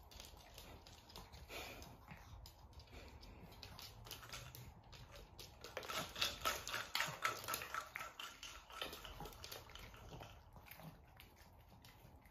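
A spring-mounted plastic treat ball on a wooden cat toy clicking and rattling as a cat bats it. The clicks are densest and loudest about six to eight seconds in.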